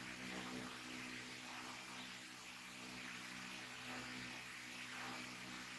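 Quiet room tone: a steady low electrical hum with a layer of hiss, unchanging throughout, with no crunching or crackling of chips.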